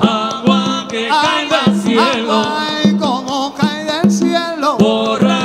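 Live salsa band playing: congas hit in a steady pattern under a melody line that slides up and down.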